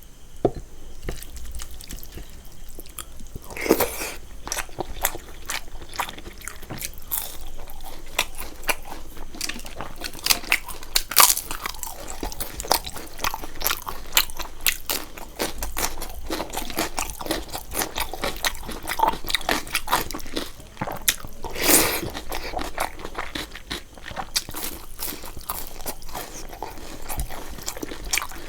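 A person eating close to the microphone: steady chewing with many sharp crunching bites, a few of them much louder than the rest.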